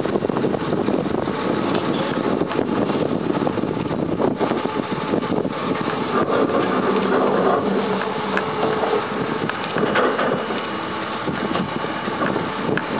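Doosan DA40 articulated dump truck's diesel engine running, under heavy wind buffeting on the microphone. The engine note comes through more clearly in the middle.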